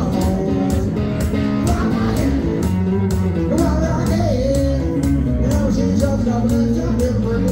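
Two electric guitars playing an instrumental break in a jump-blues shuffle: a lead line with bending notes over a rhythm part, with a steady beat.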